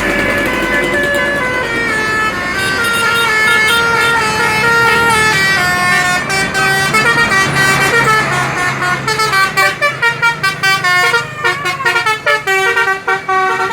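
Indonesian bus 'telolet' multi-tone horn playing a melody: held notes stepping up and down in pitch, then from about halfway a fast run of short staccato notes.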